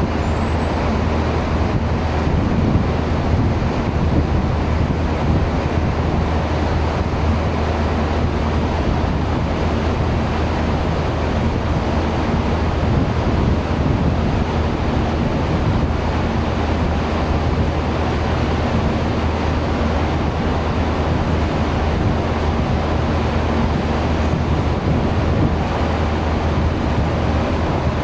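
Steady low drone of a ship's engines under a constant rush of wind on the microphone and moving water.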